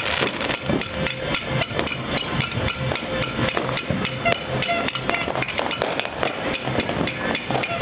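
Fireworks and firecrackers going off all around in rapid, irregular sharp bangs and cracks, several a second, without a break.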